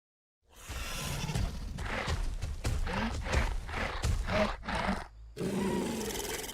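Scorpius Rex creature sound effect: a run of pulsing growls, about three a second, starting about half a second in, with a brief break near the end before another growl begins.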